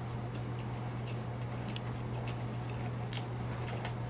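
Close-miked chewing of sushi: a few soft, wet mouth clicks over a steady low hum.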